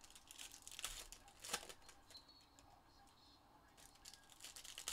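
Faint crinkling and tearing of trading card pack wrappers being handled and opened, in short irregular crackles with a louder one about a second and a half in and another near the end.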